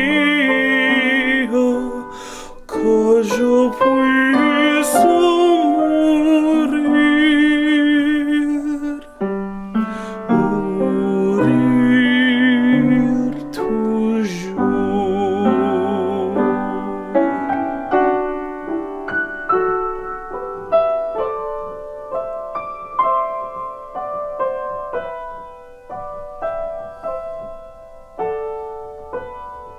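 A man singing with vibrato to upright piano accompaniment. Just over halfway through, the voice stops and the piano plays on alone, each note struck and fading.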